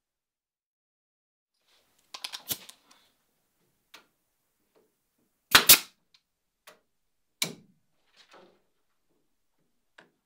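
Pneumatic nail gun firing, fastening wooden ribbands to the boat molds: a few sharp shots, the loudest a quick pair a little past halfway and another single shot about two seconds later, with fainter knocks and clicks between.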